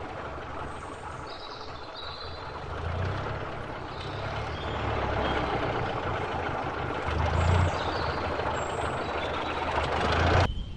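Added sound effect of an early motor car running along a road: a steady rumbling engine and road noise that swells every few seconds, with a few faint high chirps over it. The sound cuts off suddenly near the end.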